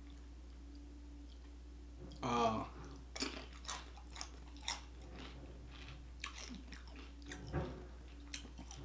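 Close-miked chewing of a tortilla chip dipped in queso: a string of short, sharp crunches and wet mouth sounds.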